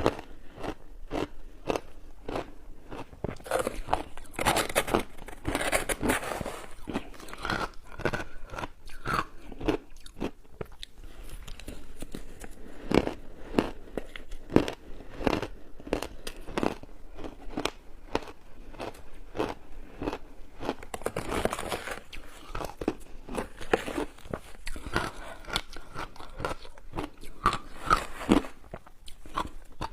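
Crunchy shaved ice with matcha tea and milk powder being bitten and chewed: a continuous run of sharp crunches, about two to three a second.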